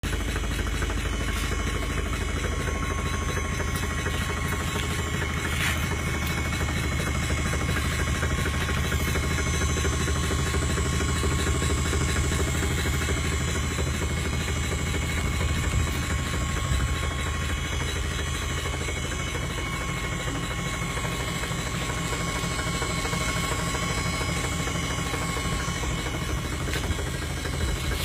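Electric drive motor of a homemade Arduino-controlled electric car running steadily under its motor controller: a steady low hum with a thin high whine over it. The low hum eases a little after about twenty seconds.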